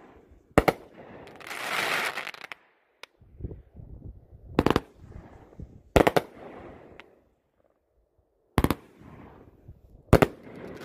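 Brothers Pyrotechnics YOWZA 21-shot 500 g firework cake firing: about five loud bangs of shells breaking, a second or more apart, with fainter launch thumps between them and a hissing trail of sparks after several bangs.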